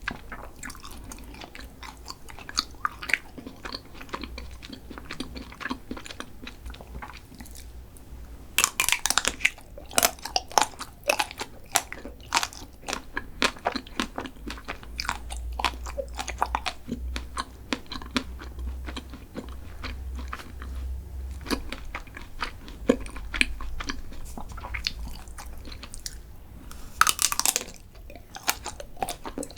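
Close-miked eating of chocolate snacks: repeated bites and crunchy chewing, with denser, louder crunching about nine seconds in and again near the end.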